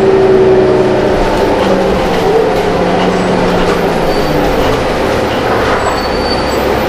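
Cabin sound of a New Flyer D40LF city bus under way: its Cummins ISL six-cylinder diesel and drivetrain run with a steady rumble and a whine that drifts slightly in pitch, over road noise.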